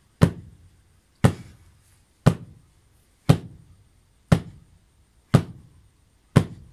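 Heavy blows struck by a man swinging his arm down, seven in all, evenly spaced about one a second, each a sharp thud that dies away quickly.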